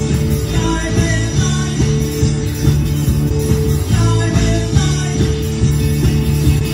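Live rock band playing loudly: electric bass, electric guitar and drums with a steady beat, and singing over it.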